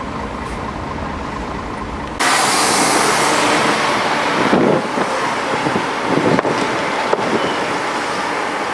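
Road traffic rumbling steadily, then an abrupt cut about two seconds in to louder, hissing wind noise buffeting the microphone in irregular gusts.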